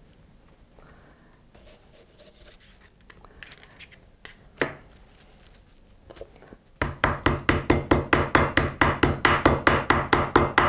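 Wooden meat mallet pounding a thin slice of beef through plastic wrap on a wooden cutting board: rapid, even blows about five a second, starting about seven seconds in. Before that, faint rustling and a single knock.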